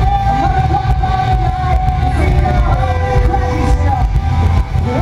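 Loud music with a heavy bass line and long held melody notes, a higher note and then a lower one.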